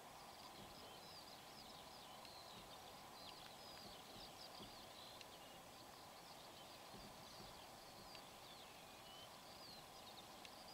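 Near silence: faint small birds twittering and chirping in short high notes over a quiet field hiss.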